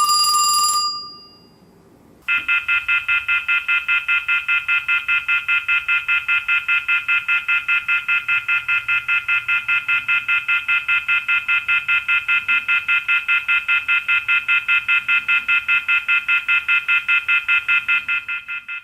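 A short ringing tone stops just under a second in. About two seconds in, a telephone's electronic ringer starts: a buzzy ring pulsing steadily at about four to five beats a second, which stops just before the end.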